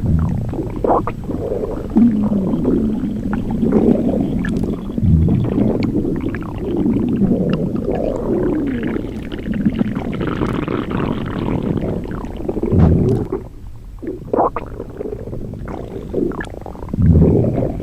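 A hungry stomach growling: a long, unbroken run of low rumbles and gurgles, with deeper rumbles about five seconds in, around thirteen seconds and again at the end, and a quieter stretch in between.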